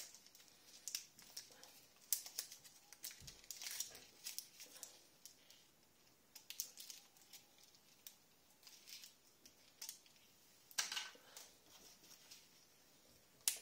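Faint crinkling and sharp clicks from plastic packaging and medical supplies being handled while the antibiotic is mixed, with a louder cluster about eleven seconds in.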